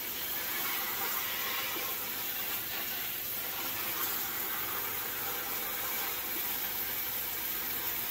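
Kitchen sink pull-out sprayer spraying a steady stream of water onto the leaves of a potted plant in the sink, soaking it.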